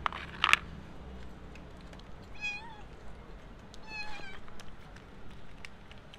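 A plastic pet bowl knocks down onto paving stones about half a second in. Then a grey cat meows twice, two short calls about a second and a half apart.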